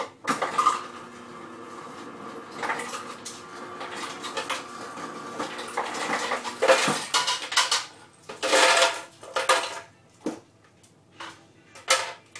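Kitchen clatter: hard dishes, cups and utensils knocking and rattling. A steady hum runs for about the first six seconds, louder clattering comes at about seven and nine seconds, and there are a few short knocks near the end.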